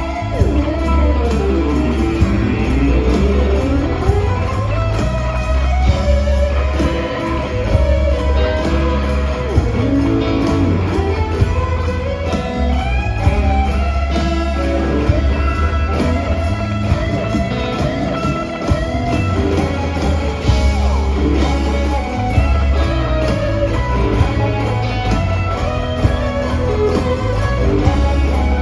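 Live electric guitar solo on a Stratocaster-style guitar, with bent notes and melodic runs, over a band playing with bass guitar.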